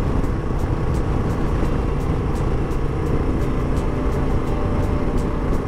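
Motorcycle carrying two riders climbing a steep highway grade in a lowered gear, its engine running steadily under load beneath heavy wind and road noise on the onboard microphone.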